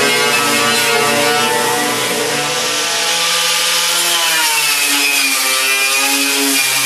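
A handheld power tool runs against the sheet metal inside a Jeep CJ-5's rear wheel well, scrubbing the panel. Its motor pitch sags and then recovers midway as it is pressed in under load.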